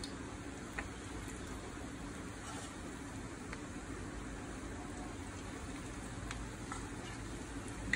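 Vegetable pakoras deep-frying in hot oil: a steady sizzle and bubbling, with a few faint clicks.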